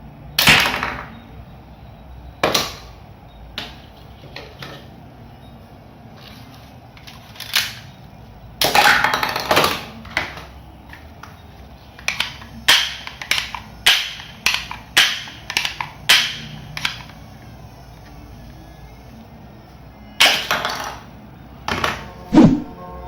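Toy pistol firing: sharp snaps, scattered at first, then a run of about nine shots roughly two a second, with a couple of longer rattling bursts.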